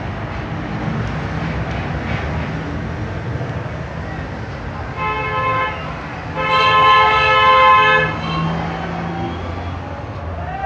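A vehicle horn honks twice, a short toot about five seconds in and then a louder one lasting about a second and a half, over steady background traffic noise.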